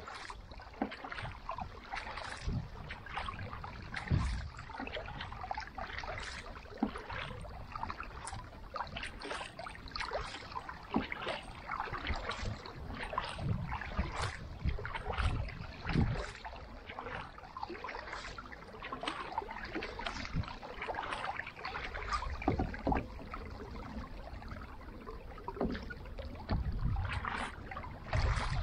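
Carbon kayak paddle blades dipping and splashing in lake water, with water trickling and dripping against the kayak. Low rumbles come in near the end.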